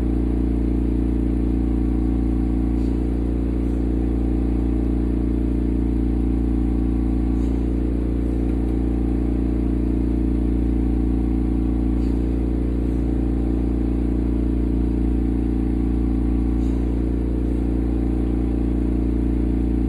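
Steady low machine hum with several fixed tones, unchanging throughout.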